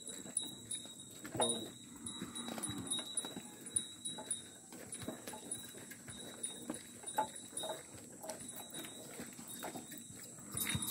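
Hooves of a cow drawing a wooden cart clopping at a walk on a paved road, with irregular knocks and rattles from the loaded cart as it rolls.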